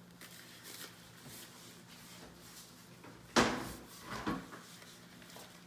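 Oven door being shut: one sharp, loud knock just past the middle, then a softer knock about a second later, over quiet kitchen room tone.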